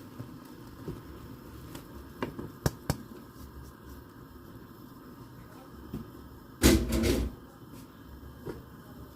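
A metal utensil clicking and knocking against a cooking pot as soaked rice is added, with three sharp knocks a little after two seconds in and a louder noisy clatter of about half a second near the end.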